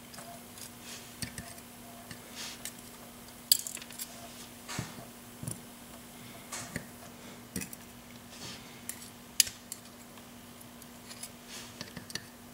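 Small metal clicks and clinks as the top pins and springs are taken out of a 6-pin Yale drawer lock cylinder and set down, at irregular intervals, a few of them sharper, over a faint steady hum.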